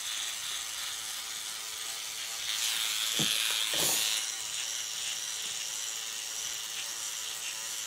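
Motorized microneedling pen buzzing steadily as its needle tip is worked over the skin of the face, creating micro-punctures. The buzz grows louder for about a second and a half near the middle, with two short low sounds.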